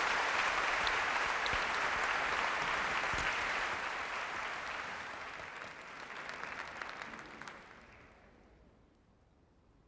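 Studio audience applauding, the clapping fading away through the second half and dying out near the end.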